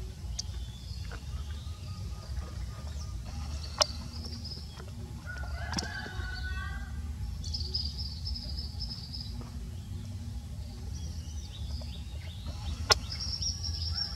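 Rural outdoor ambience: birds call now and then, with short high chirps and one falling call near the middle, over a steady low rumble. Two sharp clicks stand out, about four seconds in and near the end.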